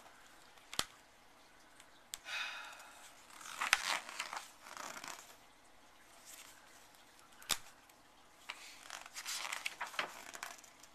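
Paper pages rustling and being turned, in several short swishes, with a few sharp taps or clicks of hands on the book.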